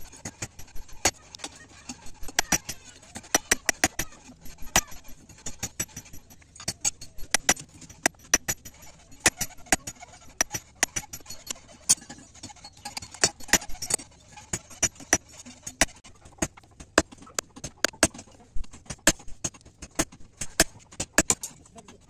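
Hand hammer striking a steel billhook (aruval) blade on an anvil block during forging: a long series of sharp metal-on-metal blows, several a second in irregular runs.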